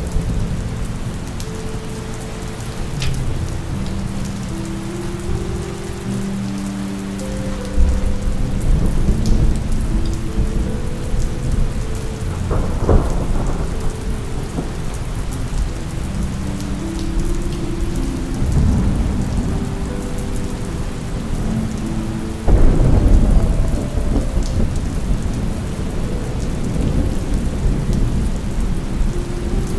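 Steady rainfall with several low rolls of thunder. The biggest roll comes about three-quarters of the way through.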